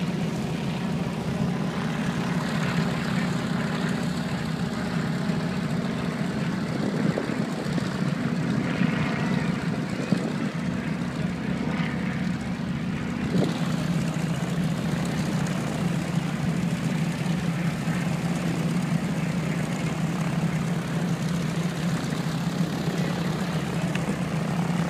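Propeller aircraft's piston engine running steadily, a low, even drone that holds through the whole stretch.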